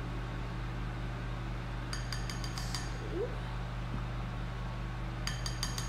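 Two short runs of quick clicking taps, about two seconds in and again near the end, as a bottle of thick serum is shaken upside down and knocked against a plastic measuring spoon to coax the serum out. A steady low hum sits underneath.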